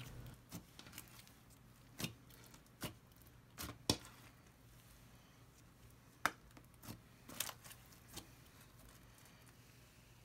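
Clear slime mixed with beads being stretched and squished by hand, giving a scattering of small sharp pops and clicks, about nine over the stretch and clustered in pairs.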